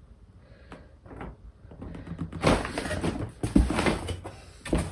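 Packaging of a boxed LED grow light being handled: a few small clicks, then from about halfway loud rustling with a couple of sharp knocks.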